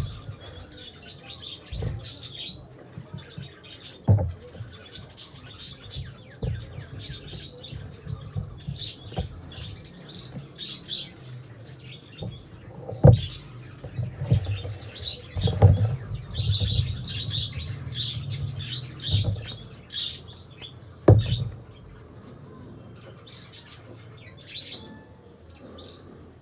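Small birds chirping in quick, repeated high calls, with a few sharp knocks and thuds mixed in.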